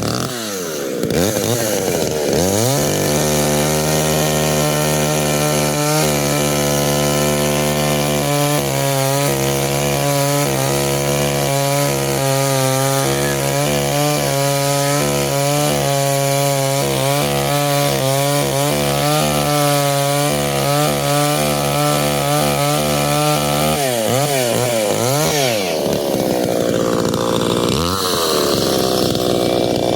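Chainsaw revved up and held at high speed as it cuts into a Japanese cedar (sugi) log, its pitch wavering under load. Near the end it eases off and revs up again twice.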